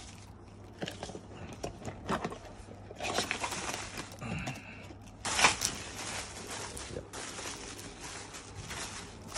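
Cardboard box flaps being pulled open and packaging handled, rustling and crinkling in irregular bursts, the loudest about five and a half seconds in.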